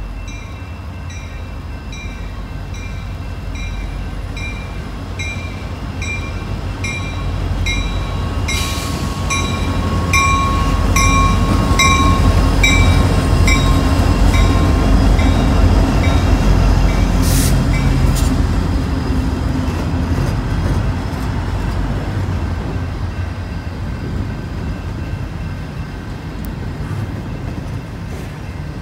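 A pair of CN SD60 diesel locomotives, EMD 16-cylinder two-stroke engines, running past at low speed, loudest as they go by, followed by double-stack container cars rolling along the rails. A bell rings about twice a second through the first part, stopping shortly after the locomotives pass, and there is one sharp clank about two-thirds of the way through.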